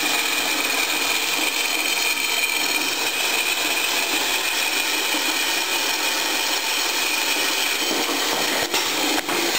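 Homemade gravity-feed metal band saw running, its blade cutting through an aluminum round bar: a steady whirring hiss with a constant high-pitched tone, briefly dipping twice near the end.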